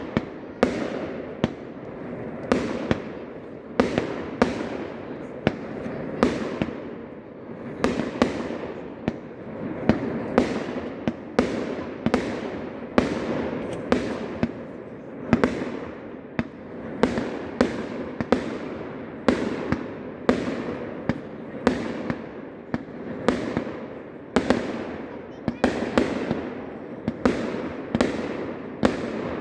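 Fireworks going off in a rapid, steady series of sharp bangs, about one or two a second, with a constant noisy background between them.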